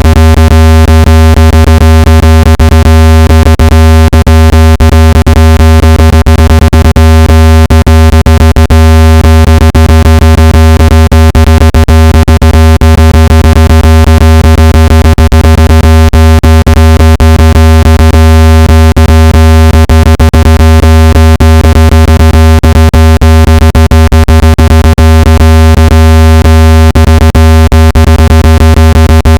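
Steady, very loud low-pitched electronic tone with many overtones and a rapid crackle running through it, unchanging: a synthesized speaker-cleaning tone played to shake water and dust out of a phone speaker.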